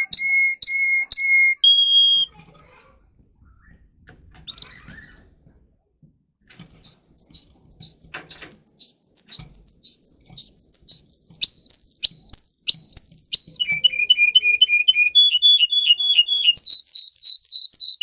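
Domestic canary singing in tours: a few repeated whistled notes, a pause of about four seconds, then long runs of the same note repeated several times a second. Each run is on its own pitch; some notes drop sharply, and one run is a lower, quicker trill.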